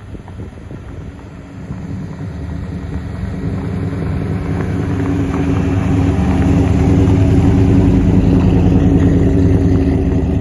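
Ford 347 stroker V8 in a 1964 Fairlane running smoothly, with no lifter tick after a bad lifter was replaced. Its sound builds gradually louder over the first several seconds, then holds steady.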